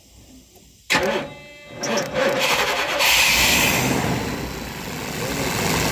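Carburetted 8-cylinder petrol engine of a mini bus being started after standing unused for years: the starter cranks about a second in, the engine catches about two seconds in and runs, loudest around three seconds in, then settles into a steady run.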